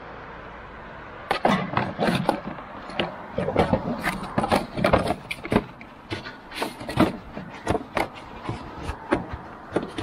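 Cardboard pizza box being pushed and crumpled into the slot of a paper-and-cardboard recycling bin: irregular crackling, scraping and knocking of cardboard against the bin, starting about a second in.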